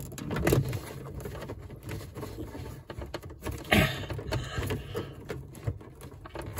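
Plastic water pipe being worked out of a push-fit fitting by hand: short rustles, scrapes and knocks of plastic, the clearest about half a second in and just before four seconds in, as the pipe is pushed in, the collar held and the pipe pulled free.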